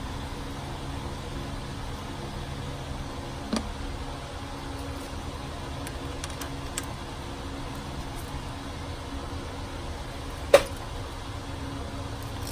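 A steady mechanical hum, with metal clinks from a ratchet and socket working on engine-bay fasteners. There are two sharp clinks, one a few seconds in and a louder one near the end, and a few faint ticks between them.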